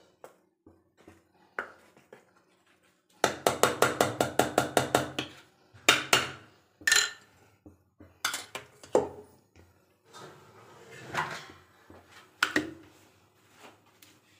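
Spoons and bowls clattering while coloured cake batter is mixed: a quick, even run of stirring strokes for about two seconds, then several separate clinks and knocks of a spoon against the bowls.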